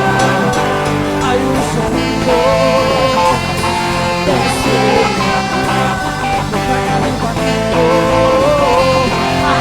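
Church worship band music: a wavering lead melody over held chords and a steady bass line, with no clear words.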